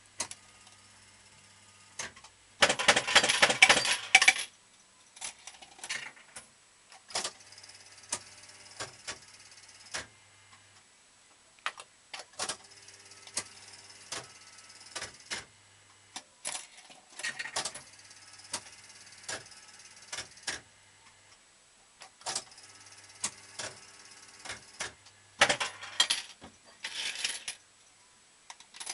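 Fruit machine in play: its reels spin and stop with sharp mechanical clicks and short electronic tones over a low hum. Two loud bursts of rapid metallic clatter come about three seconds in and again near the end.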